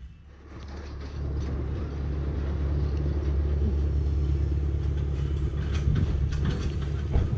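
Small farm tractor towing a little trailer, its engine running with a low steady hum that grows louder over the first two seconds as it comes up the road, then holds.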